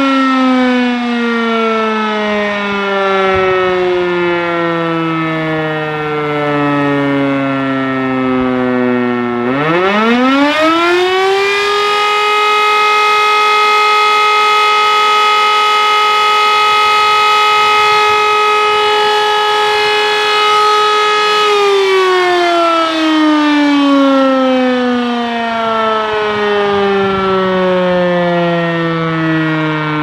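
E57 electro-mechanical rotary siren sounding a test alarm. Its falling tone winds down, then spins back up to full pitch about a third of the way in. It holds a steady loud tone for about ten seconds, then winds down again in pitch.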